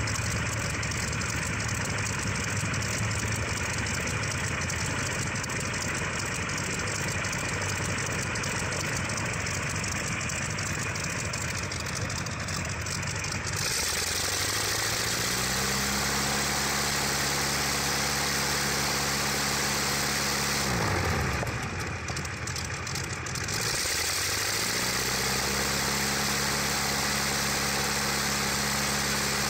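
Verner 9S nine-cylinder radial aero engine running on a test stand, turning its propeller, during a test run of its fuel mixer. About halfway through it is run up to a higher steady speed and held, throttled back sharply about 21 seconds in, then run up and held again, easing off at the very end.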